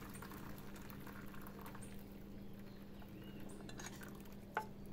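Faint trickle of liquid poured through a metal mesh sieve into a plastic bowl, with a steady low hum under it. A few light clicks come near the end.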